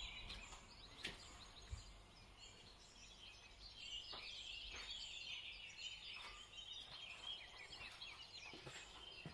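Faint birds chirping in the background, busier from about halfway through, with a few soft clicks.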